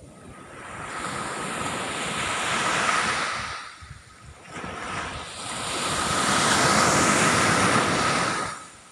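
Ocean waves breaking on a beach: two surges of surf, each building over a couple of seconds and then falling away, the second louder and longer.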